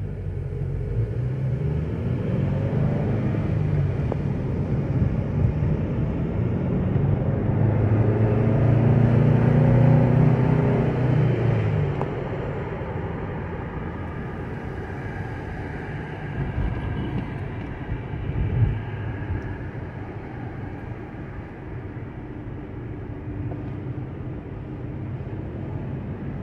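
A car driving on city streets: steady engine and road rumble. An engine hum grows louder for several seconds about a third of the way in, then eases off, and a single short knock comes later on.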